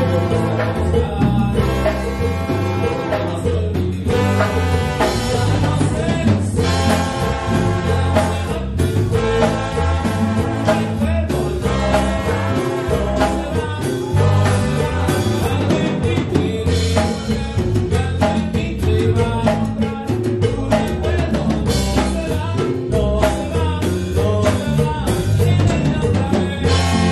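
Live band with trumpets and other brass, guitar and drums playing an upbeat song, with a man singing into a microphone.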